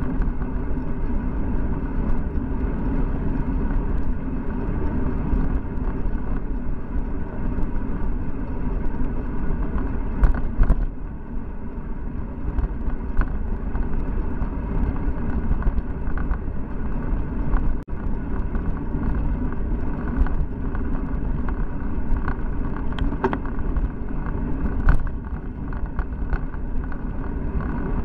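Steady wind rush and road rumble picked up by a handlebar-mounted Cycliq Fly12 camera on a moving bicycle, with scattered clicks and knocks from bumps in the road.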